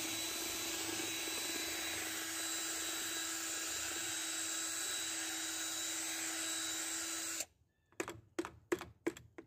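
Cordless drill spinning a paddle mixer in a bucket of buffing compound, running with a steady whine, then stopping suddenly near the end. A quick run of short knocks follows as the paddle is tapped against the bucket rim.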